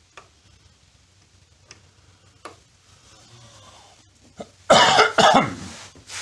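A person coughing twice in quick succession, loud and rough, after a few light taps of parts being handled.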